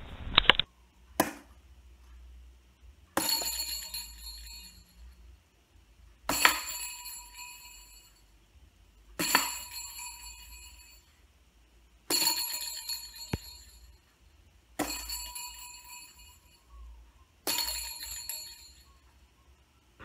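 A short knock about a second in, then six clear metallic bell-like rings, about one every three seconds, each struck sharply and fading out over a second or two: the 'ringer' sound a toss-game board makes when a throw scores in the hole.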